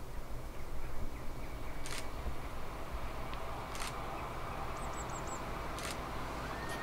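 A bus engine running steadily, with three short sharp clicks about two seconds apart and a few faint high bird chirps in the middle.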